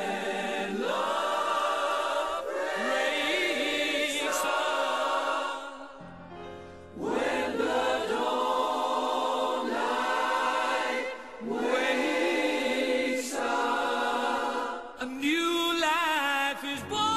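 Background choral music: a choir singing held chords in phrases, with short breaks between them.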